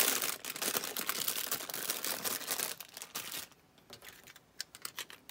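Crinkling and rustling of an adhesive refill's wrapping as it is opened, then a few light, sharp clicks over the last two seconds as the refill is handled.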